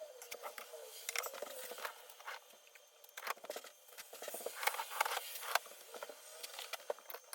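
Keys of a custom keyboard clacking in quick, irregular runs of sharp clicks, with short pauses between the runs.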